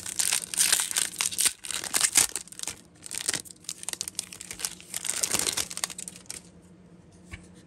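Foil wrapper of an Upper Deck hockey card pack crinkling and tearing as it is opened, a dense crackle that stops about six seconds in.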